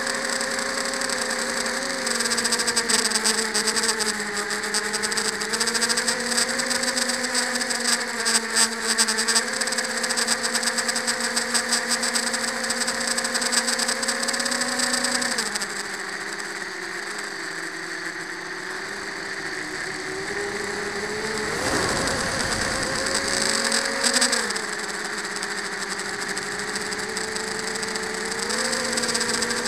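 FPV quadcopter's brushless motors and propellers whining in flight, recorded from a camera on the frame. The pitch holds, then drops and quietens about halfway as the throttle eases. There is a brief rush of noise about two-thirds through, and the pitch climbs again near the end.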